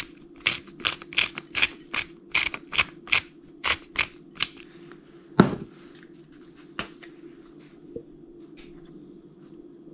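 A salt shaker shaken over a plate of food: about a dozen quick shakes, two or three a second, for the first four and a half seconds. Then a single knock, as of the shaker set down on the table, and a couple of faint clicks.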